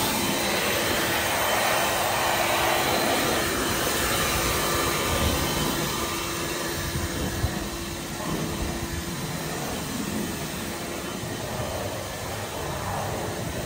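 Battery-powered Ego leaf blower running: a steady rush of air with a constant motor whine, a little lower in level from about eight seconds in.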